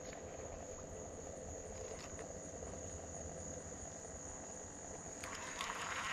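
Steady high-pitched insect drone over faint outdoor quiet. About five seconds in, a rougher, louder noise joins it.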